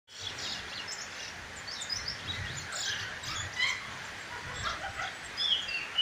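Caged songbird chirping and twittering in quick short high notes, with a few clearer whistled notes near the end.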